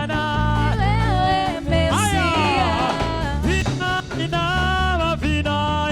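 Upbeat gospel praise music from a band, with a steady heavy bass line under a lead melody that slides up and down in pitch.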